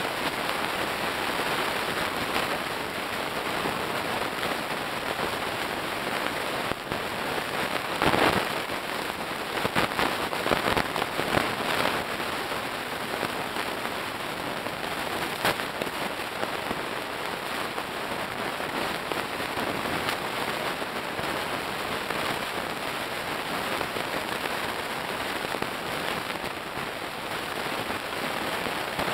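Oxyacetylene cutting torch hissing steadily as it cuts through scrap metal, with a few sharp metal knocks around 8 to 12 seconds in.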